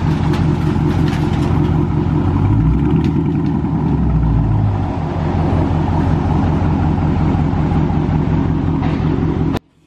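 Dodge Charger Scat Pack's 392 HEMI V8 idling through a mid-muffler and resonator delete exhaust, swelling slightly a few seconds in. The sound cuts off abruptly near the end.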